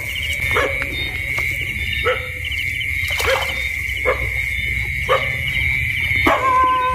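A dog barking repeatedly, about once a second, over a steady high-pitched drone of night insects.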